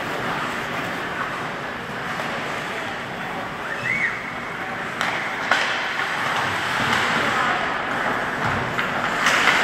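Ice hockey game in play: a steady wash of skates on the ice and indistinct voices, with sharp knocks of sticks, puck or boards, the clearest about halfway through and more near the end.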